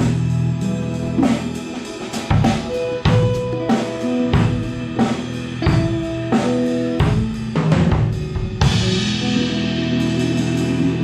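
A live band playing: drum kit strokes with kick and snare under held bass guitar notes and electric guitar and keyboard notes. A little over eight seconds in, cymbals crash and keep ringing.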